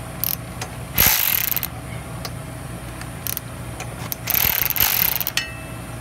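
Ratchet wrench loosening the front fork-leg axle pinch bolts, its pawl clicking in two quick runs, about a second in and again after about four seconds, with a few single clicks between.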